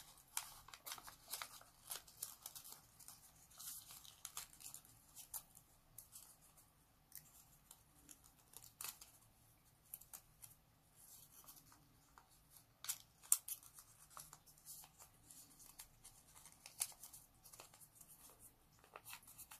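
Origami paper being folded and creased by hand: faint, scattered crinkles and small crackles of the paper, with a few sharper ones.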